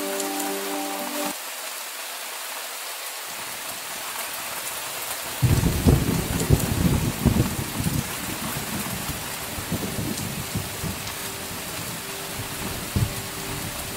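Steady rain falling. About five seconds in a thunderclap breaks out and rumbles and crackles for a few seconds before dying away into softer rumbles.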